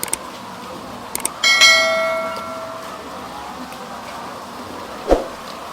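A bell struck once, ringing with several clear tones that fade over about a second and a half, after a few light clicks; a short thump comes near the end.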